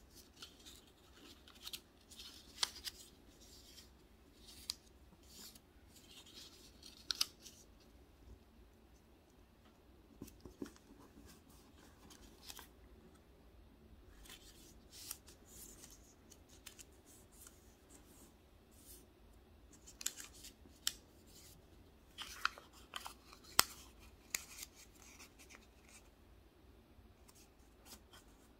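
A small strip of paper being folded and creased by hand: scattered short, crisp rustles and clicks, heaviest in a few brief clusters.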